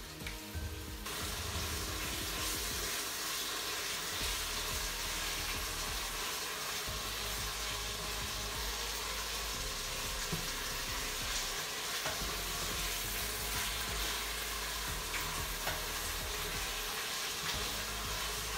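Lean pork pieces sizzling in olive oil with chopped onion and garlic in an electric multicooker pot, being stirred as the meat browns. A steady sizzle that comes up about a second in, with a few faint ticks of the spoon.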